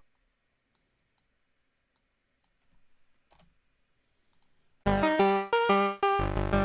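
Software-synthesizer melody of short pitched notes, played back from a digital audio workstation, cuts off abruptly; after a near-silent gap with a few faint clicks, the fast note sequence starts again near the end.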